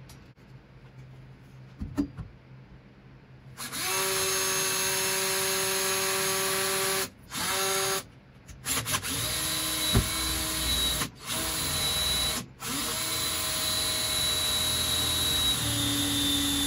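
Hand-held power drill boring a hole through a car's steel floor pan, starting about three and a half seconds in. It runs in spells of a few seconds with brief stops, its whine dropping slightly in pitch as it cuts. A single knock comes about two seconds in.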